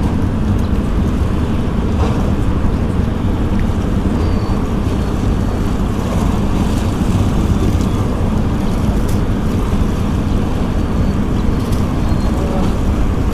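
Steady low rumble of wind buffeting the microphone over open sea, with the wash of small waves beneath it.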